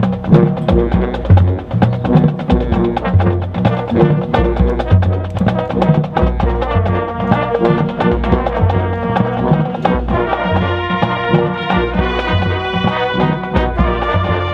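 High school marching band playing on the field: brass with the drumline and front-ensemble mallet percussion. A strong, pulsing low brass line carries the first part, and about ten seconds in the band moves to held brass chords.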